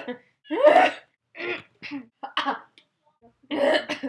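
A person making a string of about five short, throaty vocal noises, grunts and throat-clearing sounds, the loudest about half a second in.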